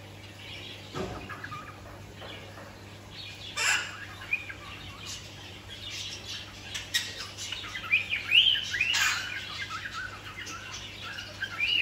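Birds chirping and calling, with a few sharper, louder calls about a third of the way in and again past the three-quarter mark; the chirping grows busier in the second half.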